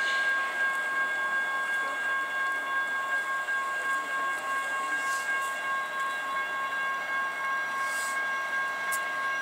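Railroad warning signal sounding as a train approaches: a high-pitched tone of a couple of steady notes with overtones that starts suddenly and holds without a break.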